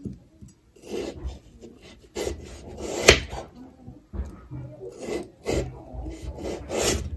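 Kitchen knife slicing a peeled potato on a round wooden cutting board: a series of about six scraping cuts, each ending in a knock of the blade on the wood, the sharpest about three seconds in.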